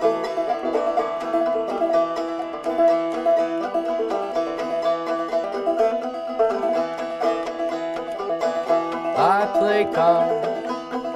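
Five-string banjo playing a quick, steadily picked tune. Near the end a man's singing voice slides upward in pitch.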